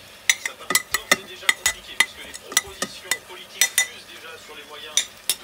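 Metal spoon striking and scraping against the inner pot of a Midea rice cooker: a quick, irregular run of sharp clinks, about three a second, as ground lamb is pushed off the spoon into the pot, with a short pause before two last clinks near the end.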